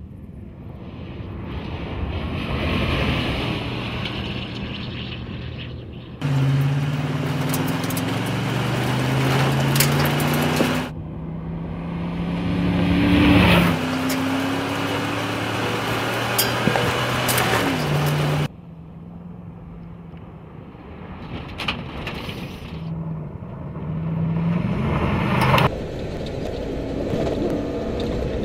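Ford F-150 SVT Raptor pickup's V8 engine revving hard as the truck drives fast over sand and gravel, its pitch climbing again and again under acceleration, with tyre and gravel noise underneath. The sound changes abruptly between close, loud passages and quieter, more distant ones several times.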